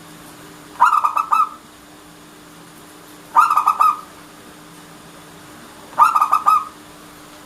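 Zebra dove (perkutut) cooing: three short phrases evenly spaced about two and a half seconds apart, each a quick run of four or five cooing notes.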